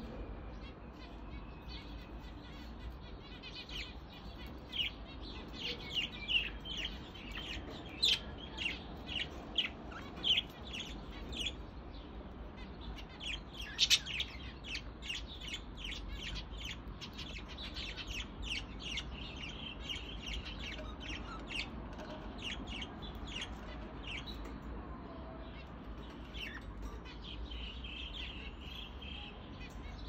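Budgerigars chattering: a run of quick, high chirps and warbles, loudest about 8 and 14 seconds in and thinning out near the end.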